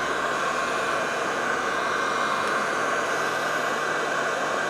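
Heat gun blowing a steady stream of hot air, used to soften the adhesive under a phone's screen glass.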